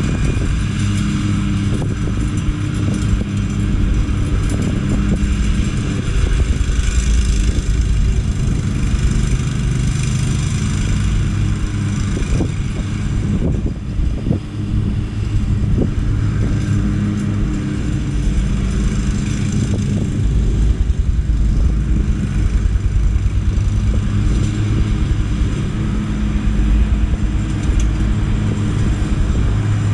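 Lawn mower engine running steadily, a constant low hum with a few brief knocks about twelve to fifteen seconds in.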